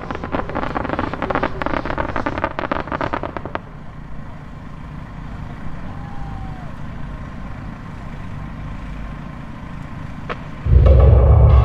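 Fireworks stars crackling densely for the first three and a half seconds, then dying away to a quieter lull. Near the end, loud dramatic music with a heavy deep bass starts suddenly.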